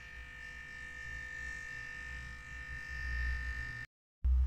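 Eheim air 100 diaphragm aquarium air pump running lying on its side on a smooth stone countertop: a steady buzzing hum with a high whine. It vibrates so strongly that it dances on the smooth surface, and it fails its owner's test for a quiet pump. The sound cuts off abruptly near the end and a low rumble follows.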